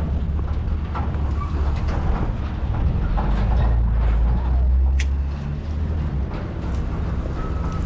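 Truck engine running, a steady low rumble that swells in the middle, with one sharp click about five seconds in.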